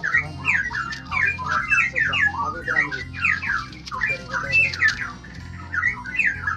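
A songbird warbling and chirping in quick, tumbling phrases of short rising and falling notes, over background music with steady low notes.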